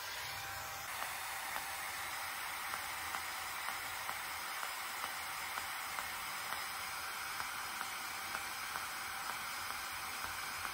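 ULIKE Air10 IPL hair-removal handset running against the skin of a leg, its cooling fan giving a steady hiss, with a soft click about twice a second as it flashes.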